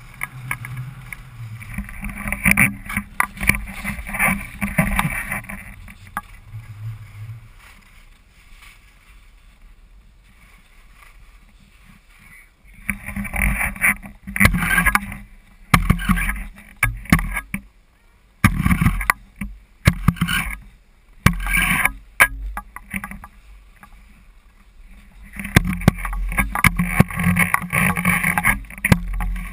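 Skis sliding and scraping over packed snow in uneven spells. A long scrape comes first, then a quieter glide, then a run of short separate scrapes and steady scraping again near the end.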